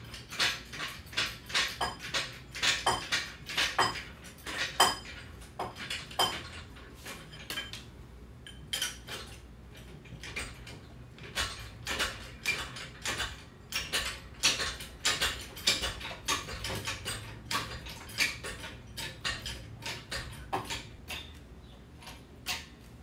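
Irregular metallic clinks, clicks and knocks from a steel floor jack being set under a pickup's front end and worked to lift it, busiest in the first half.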